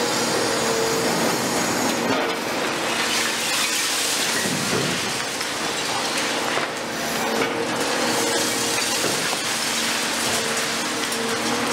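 CAT 336F long-front demolition excavator at work: its diesel engine and hydraulics run with a whine that drops away in the middle and comes back, under a dense hiss of water spraying on the building for dust suppression. The hiss swells in the middle as concrete debris breaks away.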